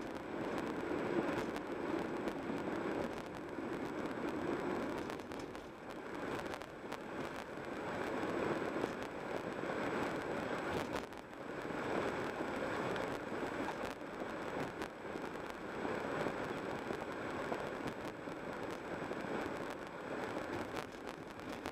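Steady road and engine noise of a car being driven along city streets, a continuous rumble of tyres and motor that swells and eases every few seconds.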